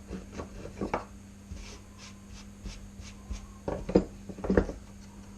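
Wood router and wooden workpiece being handled to change the cutting depth: scattered clicks and knocks, the two loudest near the end, over a faint steady hum. The router is not running.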